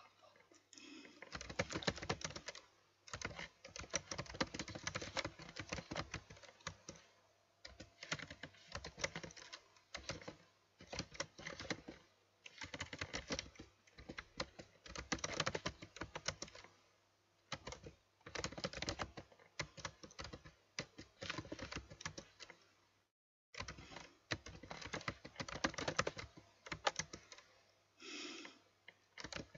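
Typing on a computer keyboard: rapid runs of keystrokes in bursts, broken by short pauses.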